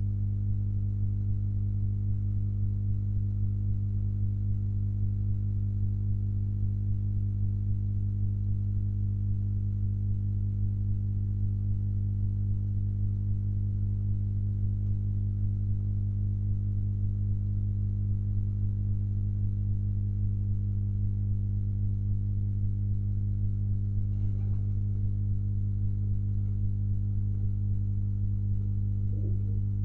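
Steady low electrical hum with a few overtones, unchanging throughout. Near the end a faint, brief wavering sound rises above it.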